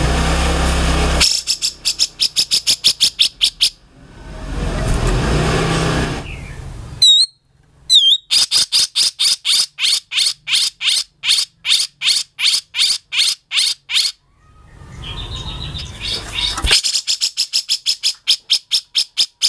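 Grey-cheeked bulbul (cucak jenggot) calling: runs of sharp, rapidly repeated notes, about four to five a second, broken by stretches of harsh, rasping noise.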